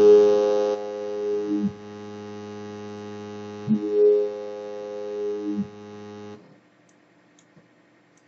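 Toxic Biohazard software synthesizer holding one bass note, its resonant filter sweeping through the tone about every two seconds: the wobble bass patch being set up. The note cuts off about six seconds in.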